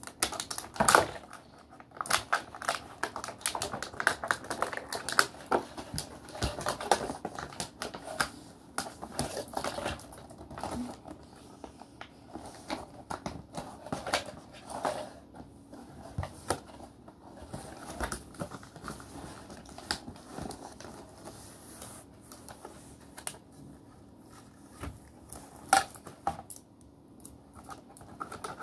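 Cardboard and plastic toy packaging being handled and worked open with scissors: many irregular clicks, taps and crinkling rustles.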